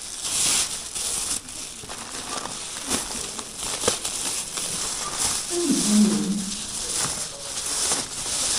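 Plastic shopping bags rustling and crinkling in irregular crackles as groceries are packed into them, with a brief low voice-like sound about six seconds in.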